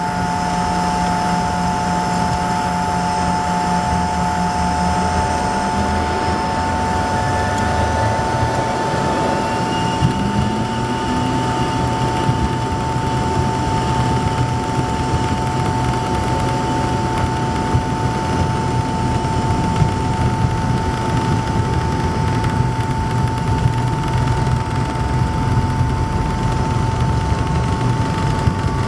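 Inside the cabin of an Embraer ERJ-145 regional jet taxiing: its Rolls-Royce AE 3007 turbofans run with a steady high whine over a low rumble. A brief rising tone comes about ten seconds in.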